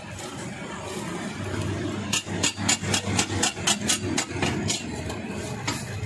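A metal spatula chopping fried egg on a flat griddle: a quick run of sharp metallic clinks, about five a second, starting about two seconds in and stopping near the five-second mark, over a steady low hum.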